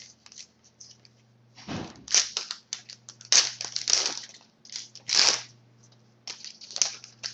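Wrapper of a pack of hockey trading cards crinkling and tearing as the pack is opened, in irregular rustling bursts with short pauses between.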